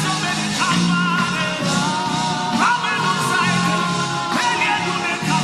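Slow worship music: sustained keyboard-pad chords under a wavering melodic line that slides up into a new note three times.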